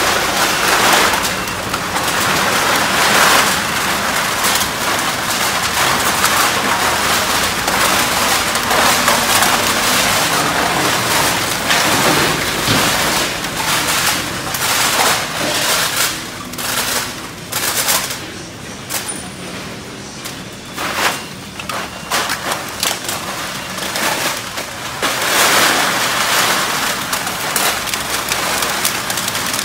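Loose aluminum cans clattering as they are tipped out of plastic bags into a steel hopper and carried up a conveyor belt: a dense rattle of many small metal knocks. It eases for a few seconds about two-thirds of the way through, then picks up again.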